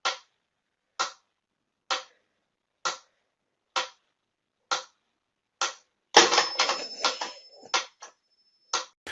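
Sharp single clicks, about one a second. About six seconds in they give way to a short stretch of denser clattering, with a faint steady high tone under it.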